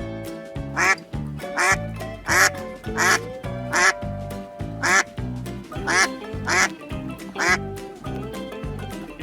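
A duck quacking, about nine short quacks in a loose series, over light background music.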